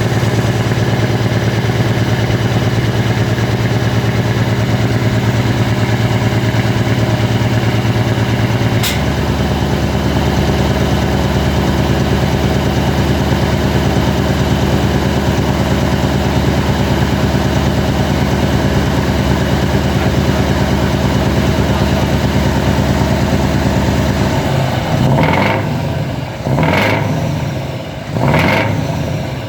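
V8 truck engine with open, unsilenced exhaust pipes idling steadily. About a third of the way in there is a click and the idle note drops lower. Near the end the throttle is blipped in a series of short revs, about four.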